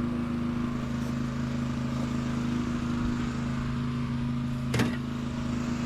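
A motor running steadily at an unchanging pitch, with one short knock about five seconds in.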